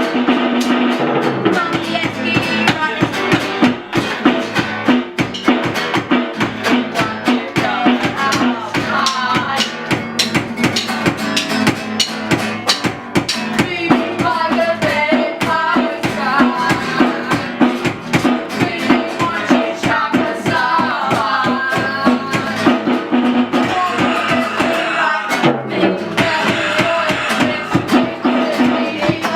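A band song with a steady drum beat, guitar and a sung vocal.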